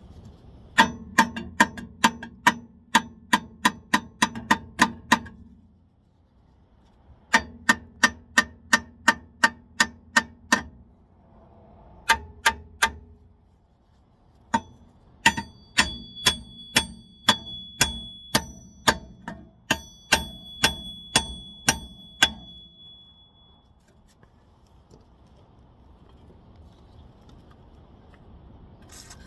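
Hammer blows on the steel rear wheel bearing hub to knock it loose: runs of sharp, ringing metal strikes about three a second, a long run, a second run after a short pause, a few scattered blows, then a last long run that stops about two-thirds of the way through.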